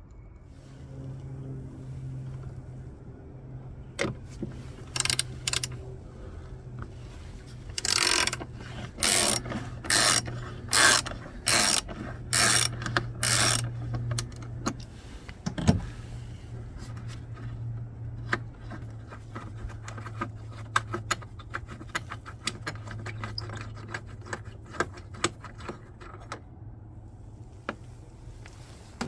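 Ratchet socket wrench clicking: a run of about seven loud ratcheting strokes, then a long stretch of quick, light clicking as the ratchet is worked in short swings.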